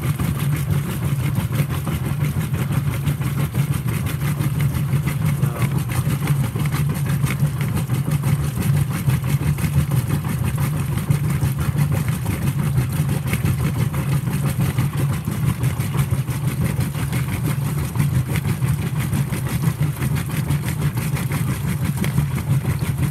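Whirlpool WTW5300SQ0 top-load washing machine running mid-cycle: a steady low motor hum with churning noise over it.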